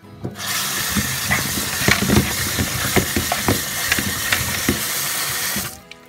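Kitchen tap water running into a plastic colander of cut squash in a stainless steel sink, with irregular knocks as the pieces are turned over by hand while being rinsed. The water starts about half a second in and shuts off near the end.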